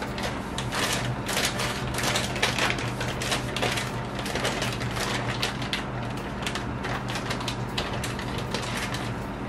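Cream sauce simmering in a stainless steel pan: irregular quick popping and spitting of bubbles, over a steady low hum.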